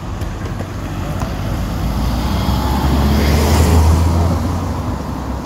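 A car passing on the road, its sound swelling to a peak between three and four seconds in and then fading.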